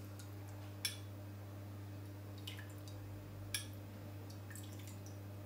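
Amaretto liqueur poured from a small glass onto a metal tablespoon and dripping into a jug of coffee: a few faint drips and light clicks of spoon against glass, the clearest about three and a half seconds in, over a steady low hum.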